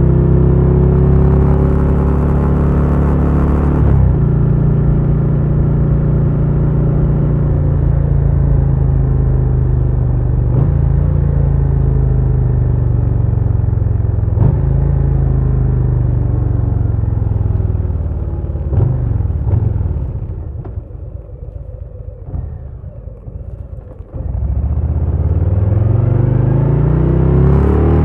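Harley-Davidson Low Rider S's Milwaukee-Eight 117 V-twin running under way, its note falling slowly as the bike slows. About two-thirds of the way through it drops to a quieter, low running, then comes back sharply with a rising note as the bike accelerates near the end.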